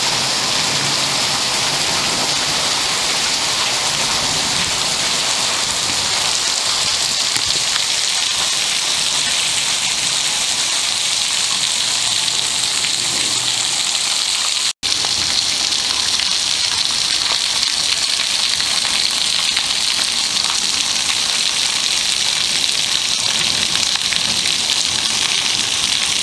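Heavy monsoon downpour falling steadily on pavement, a parked car and garden plants, with water streaming off a roof edge. The sound breaks off for an instant at an edit about fifteen seconds in.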